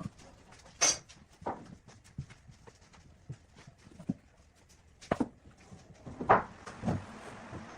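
Irregular knocks and taps, a few loud ones about a second in and again around five to seven seconds in, with fainter clicks between them.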